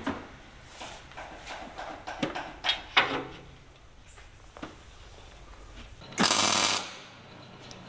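A steel frame piece being handled and set into place with a few light metal knocks and clicks, then a MIG welder laying a single short tack weld, a burst of hiss and crackle lasting about half a second, about six seconds in.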